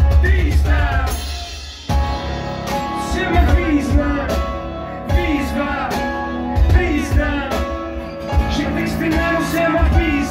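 Live acoustic band music driven by a cajon beat, with a voice singing falling phrases over it.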